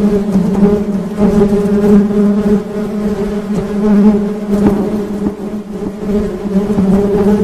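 Honey bees buzzing: a steady, continuous low buzz with a clear pitch, swelling and easing a little in loudness.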